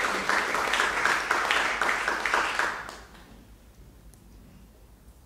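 Audience applauding in a hall; the applause dies away about three seconds in, leaving a quiet room.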